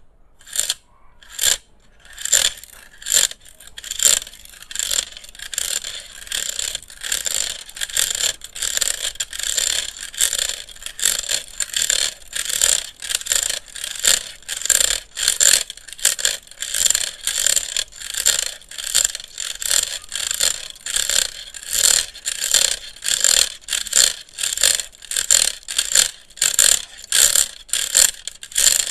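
Handheld electric fan worked as an ASMR trigger: a rhythmic run of short, crisp scraping strokes, about two a second, that carries on evenly throughout.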